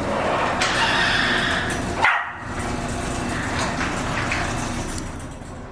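Cattle dog barking and yipping excitedly, eager to be let outside, with a sharp bang about two seconds in.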